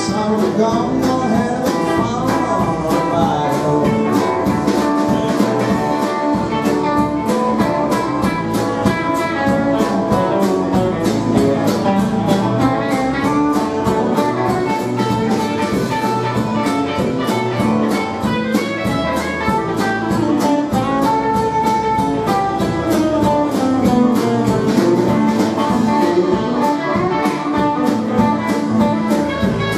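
Live rock band playing: two electric guitars, one a solid-body and one a hollow-body, over bass guitar and a drum kit keeping a steady beat.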